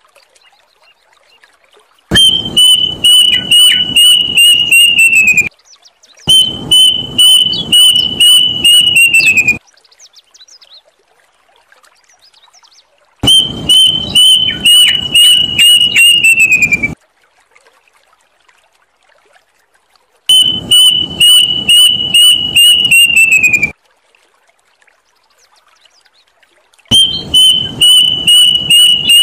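Plaintive cuckoo calling loudly in five bouts of about three and a half seconds each. Each bout is a quick run of repeated high whistled notes, about three a second, held at one pitch and then dropping at the end, with pauses of a few seconds between bouts.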